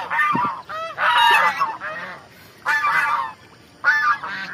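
Domestic white geese honking: a flock calling in about four loud bunches of overlapping honks.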